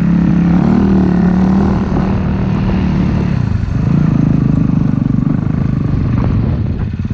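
450cc four-stroke single-cylinder dirt bike engine running under throttle while riding. It holds a steady pitch, eases off briefly about three seconds in, picks back up, and dips again near the end.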